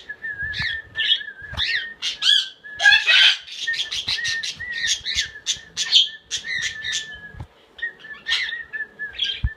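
Baby cockatiel trying to sing: a run of quick chirps and short whistled notes sliding up and down, over a thin wavering whistle, with a few soft knocks.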